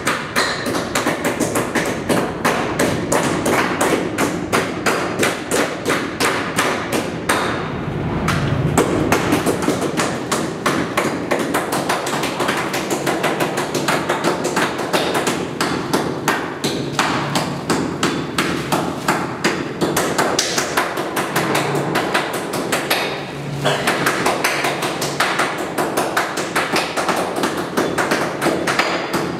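Rapid, continuous knocking of meat cleavers chopping raw meat on a hard surface, several strikes a second without a break.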